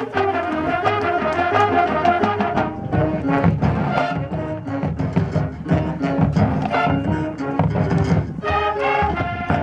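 High school marching band playing: brass melody over drums and percussion, with a heavy low-drum passage in the middle and the brass chords coming back near the end.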